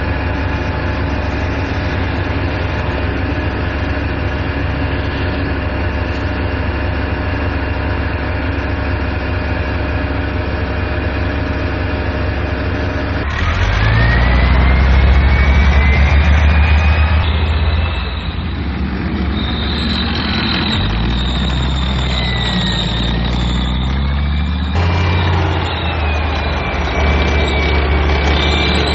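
Leopard 1-chassis tracked armoured vehicles, Gepard anti-aircraft tanks among them, running and driving on their diesel engines. For about the first half there is a steady, even-pitched running tone. Then it turns abruptly louder and deeper, with a high whine that rises and falls.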